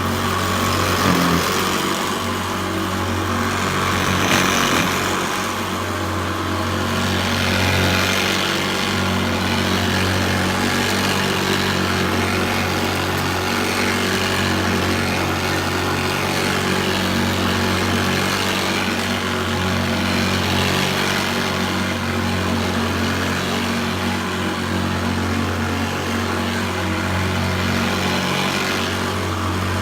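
Hoover Senior Ranger U4002 upright vacuum cleaner running on carpet: a steady motor hum with brush-roll agitation, swelling slightly now and then.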